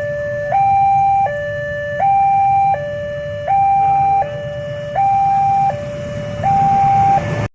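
Two-tone hi-lo siren alternating between a higher and a lower note about every three quarters of a second, over a steady low rumble.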